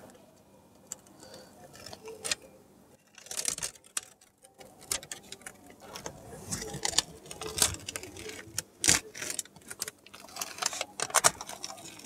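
Hands peeling the paper backing off adhesive tape strips and handling an aluminium-foil bubble-insulation sheet: irregular crinkling and crackling with many small clicks.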